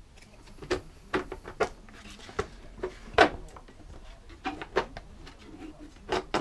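Irregular clicks and knocks of hand tools and a lawnmower's plastic engine cover being handled and worked at while it is pried loose, with one sharper knock about three seconds in.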